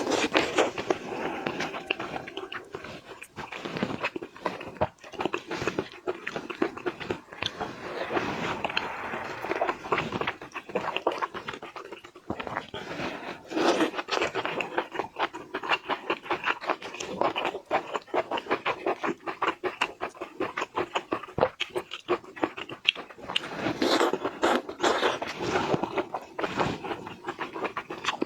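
Close-miked eating of shellfish: wet chewing, sucking and slurping, with dense, irregular crackles and clicks of shell and flesh.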